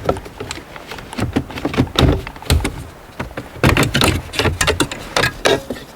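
A plastic interior trim piece being pried out of a Nissan Altima's center console around the gear shifter: a run of sharp plastic clicks, knocks and scrapes, busiest about two seconds in and again around four to five seconds in.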